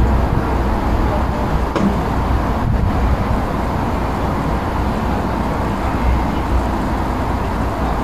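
Steady outdoor background noise: a continuous low rumble with a broad hiss over it, with no distinct event standing out.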